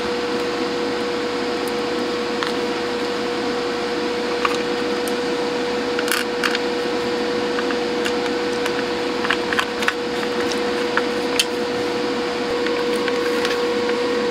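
Scattered light clicks and taps of the plastic front panel and circuit board of a Roberts RD60 DAB radio being handled and fitted back into place, over a steady hum with one constant note.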